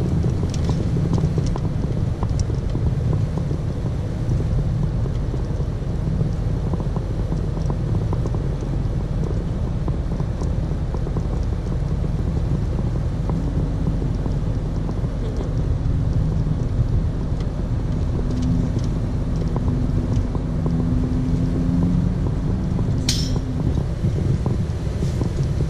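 Heavy truck running on the highway, heard inside the cab: a steady rumble of engine and road noise. A steady drone joins about halfway through, and a brief sharp hiss comes near the end.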